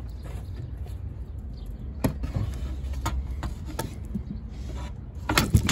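Cut plywood sheets being handled and shifted: single light knocks about two, three and four seconds in, then a cluster of louder wooden knocks near the end, over a steady low rumble.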